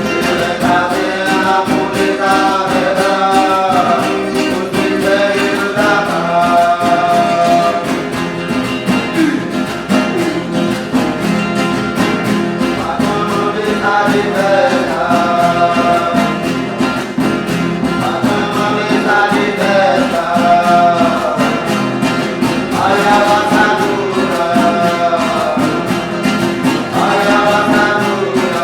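Huni Kuin chant sung in phrases of a few seconds each, over a plucked acoustic guitar accompaniment.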